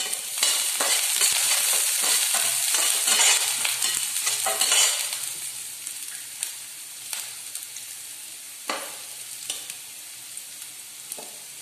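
Chopped onion and garlic sizzling in hot oil in a stainless steel pan. A spatula stirs and scrapes against the pan for the first five seconds or so. The sizzle then settles lower, with a few sharp clicks.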